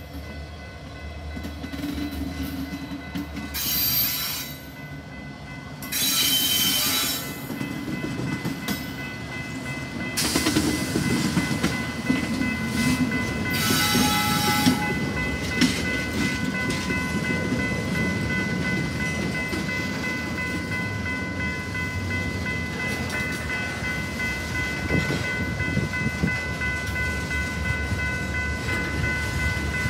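Union Pacific freight train passing a grade crossing: diesel locomotives rumbling by, then flatcars rolling past with rail clatter that grows louder after about ten seconds. Short noisy bursts come at about four, six and fourteen seconds in. Steady high ringing tones from the crossing signal continue from about ten seconds on.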